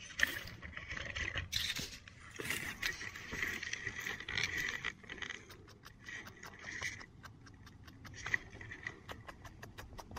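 Fingers scraping and brushing loose, gravelly soil in a small dug hole, with many small clicks of grit and pebbles.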